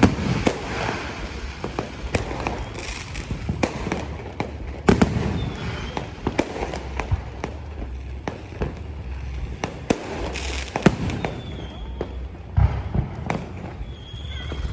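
Fireworks going off: a string of irregular bangs and pops, with louder booms about five and eleven seconds in.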